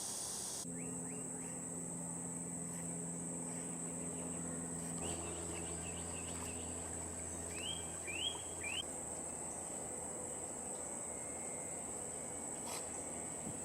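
Steady high-pitched insect drone, with a few short rising chirps a little past the middle, three of them close together.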